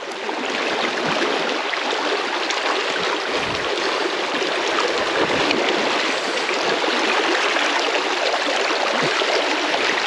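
Shallow river running fast over stones in a riffle: a steady, even rush of water close to the microphone.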